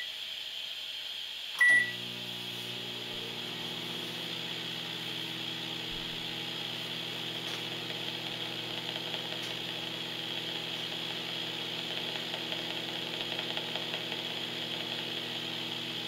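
Sanyo microwave oven keypad gives one short beep about two seconds in, and the oven starts up and runs with a steady low hum while heating.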